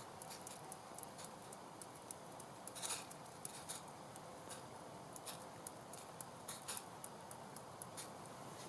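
A small wood fire crackling under a pot of simmering soup: irregular sharp pops and ticks over a soft steady hiss, with a slightly louder cluster of pops about three seconds in.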